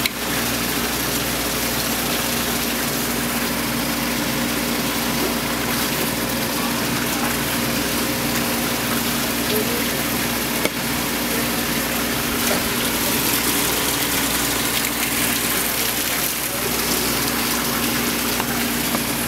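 A steady machine hum with a few fixed low tones, over a constant water-like hiss; it does not change.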